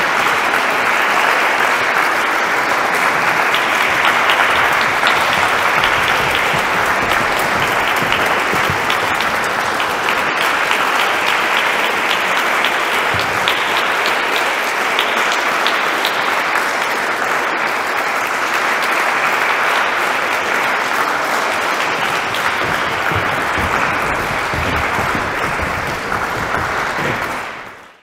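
Audience applauding steadily, a dense even clatter of many hands clapping, fading out near the end.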